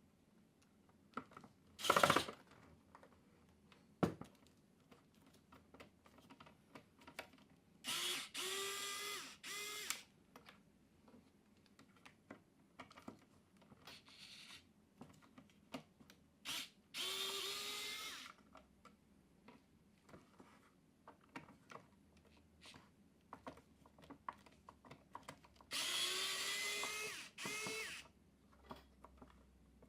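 A small electric motor, drill-like, run in three short bursts of one to two seconds each, its pitch rising slightly as it spins up. Clicks and handling knocks come between the bursts, with a sharp knock about two seconds in.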